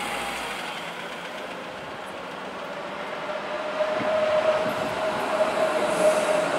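A rail vehicle passing close by: wheels running on the rails, with a steady whine that grows louder from about halfway through.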